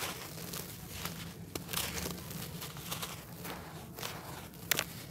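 Gritty red dirt blocks, soaked in water, being squeezed and crumbled by hand: irregular wet, gritty crunching and grinding, with a sharp crack near the end.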